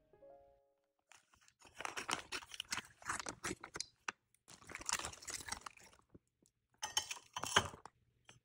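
Kitchen food-preparation handling sounds: several runs of rustling and scraping, with light clinks, each lasting a second or two, with short gaps between them.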